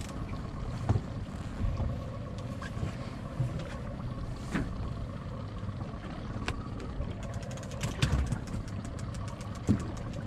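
Small fishing boat's motor idling steadily, with several sharp knocks and a quick run of clicking over the last few seconds.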